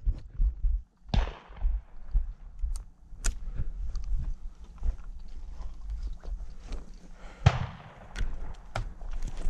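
Two shotgun shots from an over-under shotgun, about six seconds apart, each followed by a short fading echo; the second shot is the louder.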